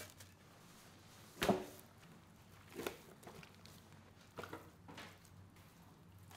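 Food-handling noises: a few short rustles and knocks, the loudest about one and a half seconds in, as gloved hands move plastic sheeting and marinated fish in a stainless-steel tray, over a low steady hum.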